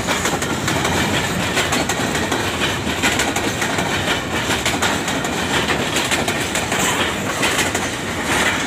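Freight train of covered box wagons passing close by: a steady rumble of steel wheels on the rails with a rapid clickety-clack of wheels crossing the rail joints.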